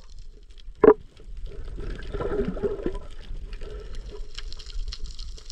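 Water splashing and sloshing, with a single sharp knock a little under a second in.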